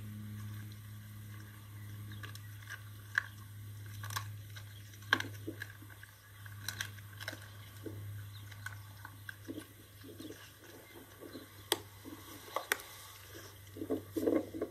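A dog chewing and crunching a whole rabbit carcass, with irregular sharp crunches that come thicker near the end, over a steady low hum.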